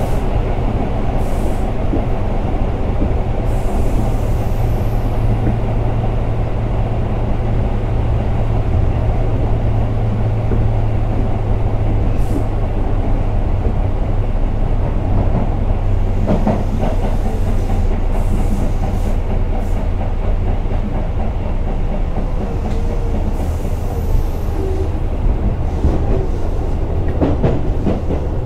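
Tobu 8000 series electric commuter train running between stations, heard from inside the car. Steady running noise with a low hum that weakens about halfway through, and a few brief clicks of wheels over rail joints.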